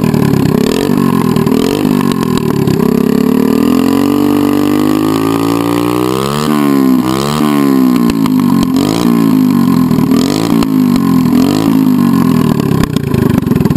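Z100 step-through motorcycle's small single-cylinder four-stroke engine revved through a bare straight 1x1 exhaust pipe with the DB Killer baffle removed. It is blipped repeatedly, with a longer climb to its highest revs about halfway through.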